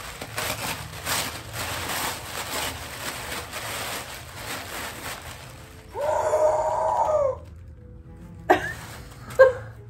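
Rustling and crinkling of package wrapping as a small parcel is torn open and a t-shirt pulled out. About six seconds in, a girl lets out a long, excited "ooh", followed by two short excited exclamations.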